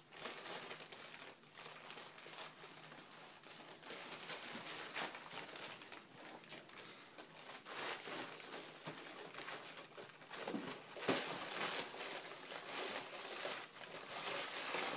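Round paper lampshade rustling and crinkling as a cat walks and shuffles about with its head stuck inside it. Two louder bumps come about ten and eleven seconds in.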